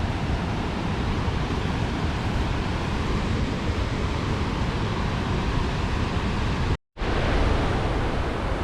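Steady roar of Cumberland Falls, a large waterfall on the swift, high-running Cumberland River. The sound cuts out for a split second about seven seconds in.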